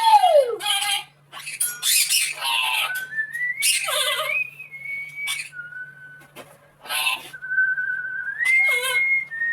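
Pet parrot whistling and squawking: a swooping whistle at the start, harsh squawks, and several held whistle notes, some sliding upward.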